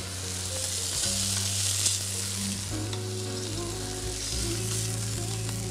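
Seared chicken breasts sizzling in hot oil in a frying pan, a steady hiss, as they are lifted out into a tomato sauce; they are still raw in the middle.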